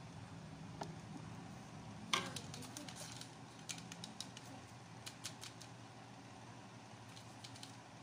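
Light clicks and taps of plastic ceiling-fan parts being handled and set down, the sharpest one about two seconds in and a scatter of smaller ones after. A faint low steady hum runs underneath.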